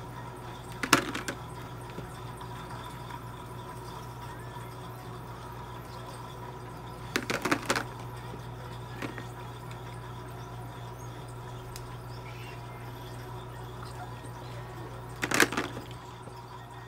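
A steady low electrical hum with three brief clusters of clicks and scuffing: about a second in, around seven seconds in, and near the end, the last two the loudest and longest.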